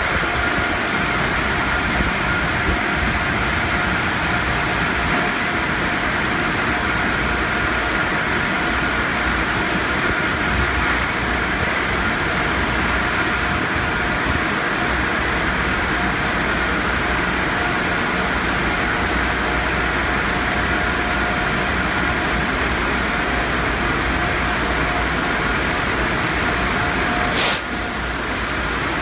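Peco tunnel car wash equipment running: spinning cloth brushes and water spray make a steady, loud wash with an even pitched hum through it. A single sharp click near the end.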